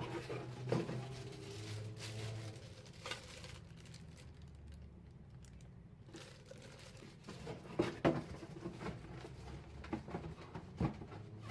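Plastic blender parts and packaging being handled: crinkling and rustling with scattered light knocks and clicks.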